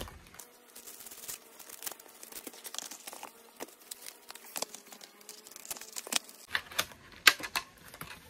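Plastic packaging crinkling and a cardboard box insert rustling and tapping while a cordless screwdriver is unpacked, a run of irregular sharp crackles that is loudest about seven seconds in.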